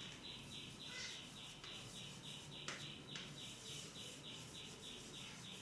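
A bird chirping faintly and steadily in the background, about three short chirps a second, with a single sharp click about halfway through.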